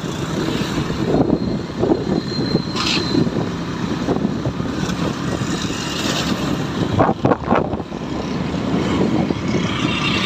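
Steady road and traffic noise while riding along a busy city road: engine, tyre and wind noise with passing motorcycles. A brief high tone sounds about two and a half seconds in, and a few loud knocks or buffets come about seven seconds in.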